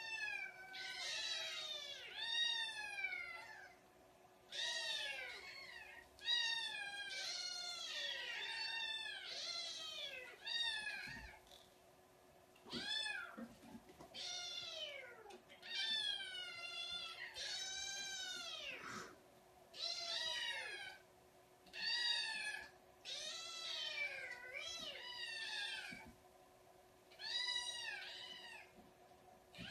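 A litter of kittens meowing over and over: high calls that rise and fall, often overlapping one another, in runs with short pauses between them, over a faint steady hum.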